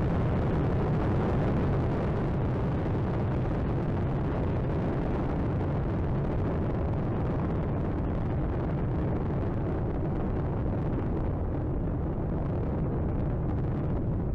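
Space Shuttle Atlantis launch roar during ascent, about half a minute after liftoff, with its main engines and solid rocket boosters still at full thrust before the throttle-down for maximum dynamic pressure. It is a steady, deep rumbling noise with no breaks.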